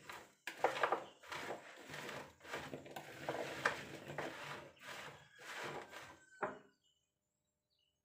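A large spoon stirring cured black olives and spices in a plastic bowl: a run of irregular scraping, clattering strokes that stop abruptly a second or so before the end.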